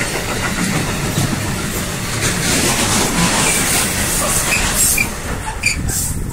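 A train rolling past close by: a steady, loud noise of wheels running on the rails, with a few sharp clicks near the end.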